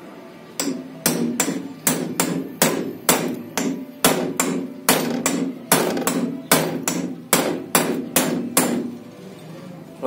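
Hammer blows on a steel punch held against the centre of a car alternator's rotor shaft, about two sharp metal-on-metal strikes a second with ringing between them, driving the rotor out of the alternator's housing. The blows stop about a second before the end.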